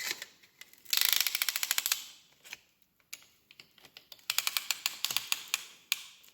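A hand ratchet clicking rapidly in two runs of about a second or more each, with a few single clicks between them.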